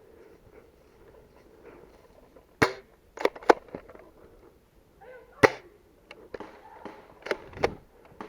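Airsoft guns firing single shots: about six sharp pops, irregularly spaced, the loudest about three and a half and five and a half seconds in.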